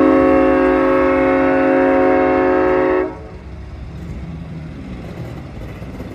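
A train's multi-tone air horn held in one long steady chord, cutting off sharply about three seconds in, sounded for the road crossing. After it, the passenger coaches rumble past on the rails.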